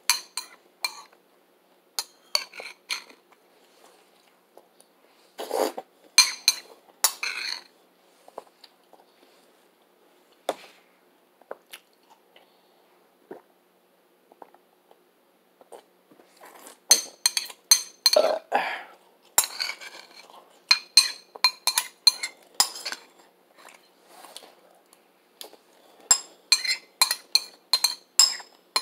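Metal spoon clinking and scraping against a ceramic cereal bowl: scattered taps and a few duller scrapes in the first seconds, a quieter stretch in the middle, then quick runs of ringing clinks through the second half.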